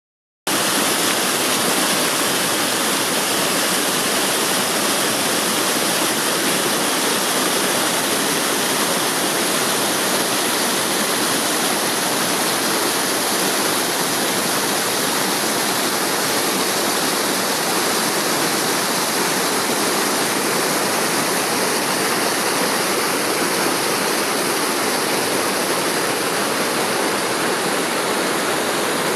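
Small waterfall pouring over rock into a waterhole: a steady, unbroken rush of falling water.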